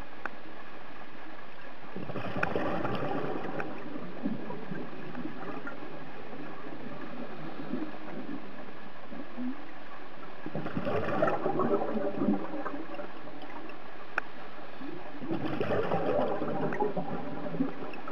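Scuba regulator exhaust heard underwater: three bursts of crackling, gurgling exhaled bubbles from the diver's breathing, over a steady hiss.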